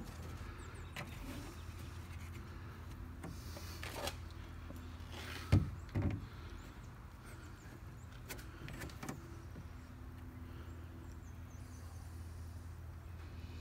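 Light knocks and handling sounds of a plastic epoxy mixing cup and wooden stir stick on a fiberglass boat hull, loudest as two sharp knocks about five and a half and six seconds in, over a steady low hum.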